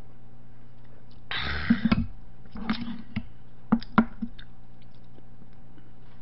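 Small table noises during a meal: a short breathy sound after a drink from a makgeolli cup, then a few sharp clicks as the cup is set down and chopsticks are picked up, over a steady low electrical hum.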